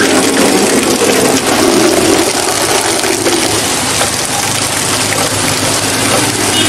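Heavy rain pouring down, with a vintage Vespa scooter's small two-stroke engine running steadily underneath.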